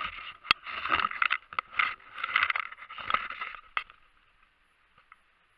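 Spring breeding chorus of frogs and toads: many overlapping, pulsing calls that thin out and fade about four seconds in. A sharp click comes about half a second in.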